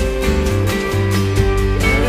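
Background rock music with acoustic guitar and a steady beat, no vocals.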